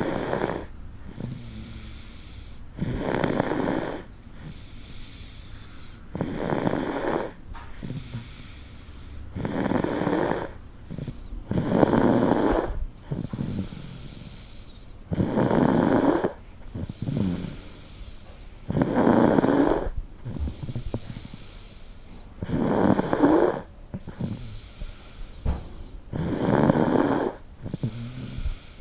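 A one-year-old toddler snoring hard in sleep: a rough snore on each breath, about every three to four seconds.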